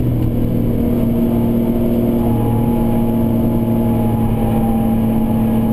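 Ford Contour SVT's 3-liter V6 with true dual exhaust pulling at steady high revs on track, heard inside the cabin, its pitch holding nearly level with a slight rise from about two seconds in.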